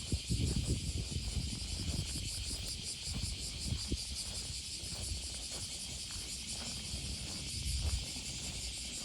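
Chorus of cicadas singing, a steady shrill buzz with a fine rapid pulse. Low rumbles of wind on the microphone come and go underneath, strongest near the start and again about eight seconds in.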